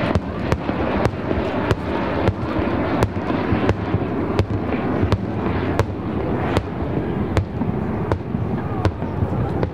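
Air-show pyrotechnics going off in a steady string of sharp bangs, roughly one every 0.7 seconds, over a continuous rushing roar.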